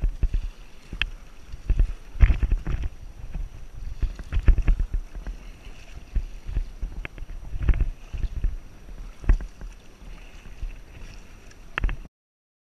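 Kayak paddle strokes dipping and splashing in lake water, one every second or two, with a low rumble on the microphone under each stroke.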